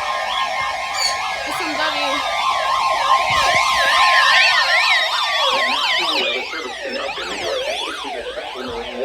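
Several electronic siren alarms sound at once, their pitches sweeping rapidly up and down and overlapping, over a steady alert tone and a few slow falling sweeps. They are going off for an incoming weather-radio special marine warning.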